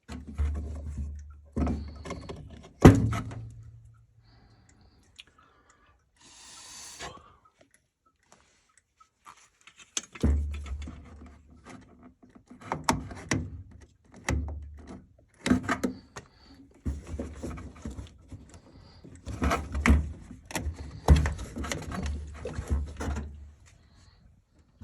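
Irregular knocks, clunks and rubbing from hands working on equipment, with a quieter stretch from about four to ten seconds in.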